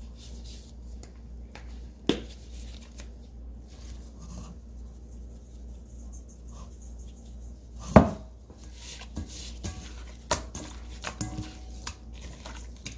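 Scattered clicks and knocks of a spice jar and gloved hands working raw chicken thighs in a stainless steel bowl, with one sharp knock about eight seconds in and smaller ones near two and ten seconds. A low steady hum runs underneath.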